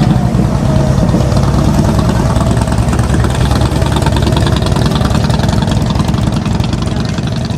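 Strong wind buffeting the microphone: a loud, steady, fluttering rumble.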